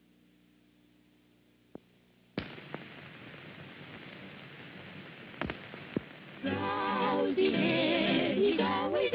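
Soundtrack of an old film print starting up: a faint hum, then about two and a half seconds in a sudden steady hiss with a few pops and crackles. About six and a half seconds in, the title music starts loudly with a wavering melody.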